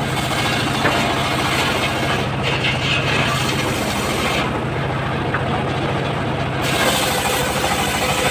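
The engine of a homemade circular-saw rig running steadily, with a high hissing saw noise that fades in the middle and comes back near the end.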